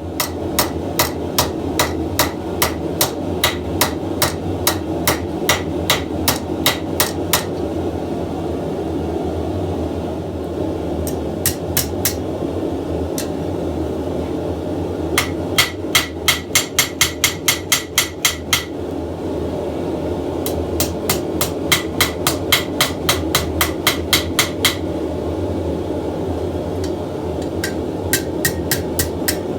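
Blacksmith's hammer striking steel on an anvil in runs of ringing blows, about three a second and faster, near four a second, in the middle run, with short pauses between runs. A steady low roar runs underneath.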